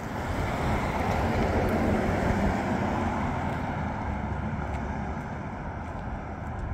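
A car passes on the road. Its tyre and engine noise swells to a peak about two seconds in and then fades, over a low wind rumble on the microphone.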